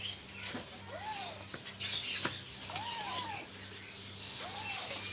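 Alexandrine parrot chicks calling: about three separate short whining calls, each rising and then falling in pitch.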